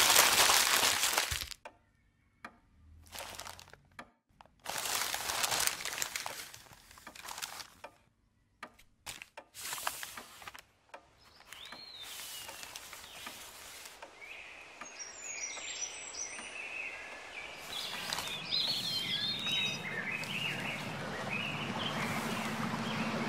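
Newspaper crumpling and rustling in several loud bursts with short silences between them. After that comes a soft outdoor ambience with birds chirping, growing slowly louder.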